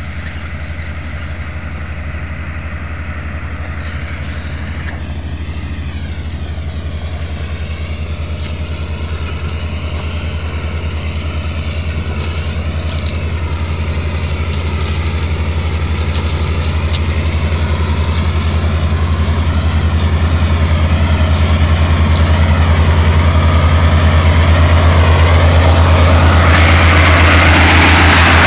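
Tractor engines and a trailed onion harvester working across the field, a steady low drone that grows gradually louder as the machines approach. Near the end, with them close by, a broad rattle of the harvester's elevator and lifted onions joins in.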